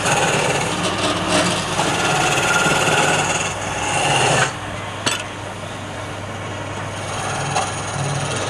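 Wood lathe running, with a turning tool cutting into the spinning wood in a rough scraping rush that stops sharply about four and a half seconds in. The lathe's steady motor hum carries on, with a single sharp click about a second later.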